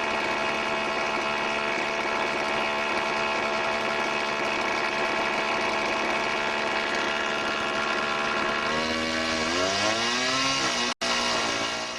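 Two-stroke chainsaw running steadily at high revs. Near the end its pitch dips and climbs back several times as it takes load in the cut.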